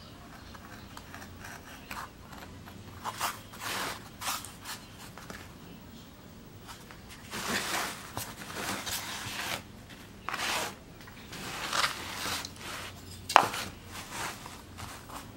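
Small hand gouge carving into a plywood woodcut block: short, irregular scraping cuts through the wood. A sharp knock comes near the end.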